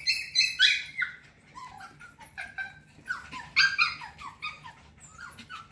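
A litter of F1B mini goldendoodle puppies yipping and whimpering as they play-wrestle: many short, high calls, several falling in pitch, in quick clusters at the start and again about three seconds in.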